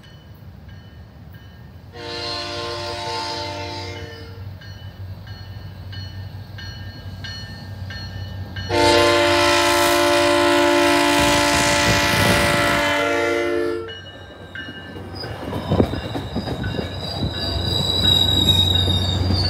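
SunRail commuter train's horn sounding as it approaches a grade crossing: a blast of about two seconds, then a longer, louder blast of about five seconds. The train then rumbles into the station, with wheel squeal near the end.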